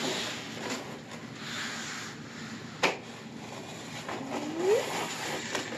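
Small knife slitting packing tape and cardboard on a shipping box, a scratchy scraping and rustling, with one sharp click near the middle.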